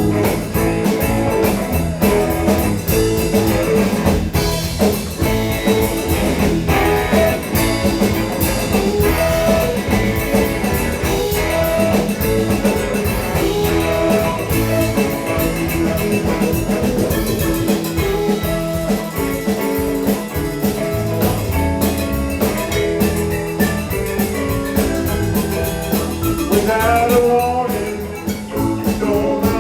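Live rock band playing loudly and continuously, with electric guitar, bass and drum kit. Near the end a guitar line bends up and down in pitch.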